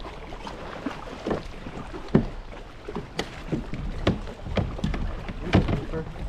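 Irregular slaps and splashes of water around a plastic fishing kayak while a hooked fish is worked up to the boat, about a dozen sharp strokes at uneven intervals.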